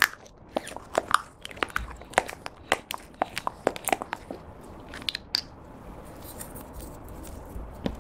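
Glitter body gel squeezed from a soft plastic tube into a plastic drinking straw, giving a quick run of small sharp clicks and crackly pops that thin out after about five seconds.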